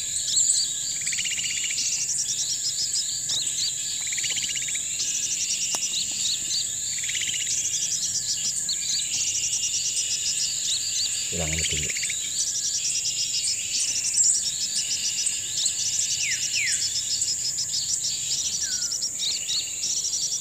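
Tropical forest insects sing in a steady high hiss, with rapid chirping trills repeating every few seconds. A few short falling bird whistles come near the end.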